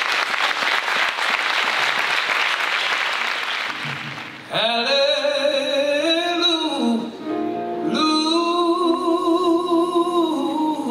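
Audience applause for about four seconds, tapering off. Then a solo voice begins singing long, held notes with vibrato over a sustained instrumental accompaniment.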